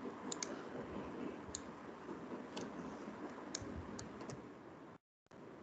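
Computer mouse clicking, about seven short sharp clicks at irregular intervals, some in quick pairs, over a steady background hiss. The audio drops out completely for a split second near the end.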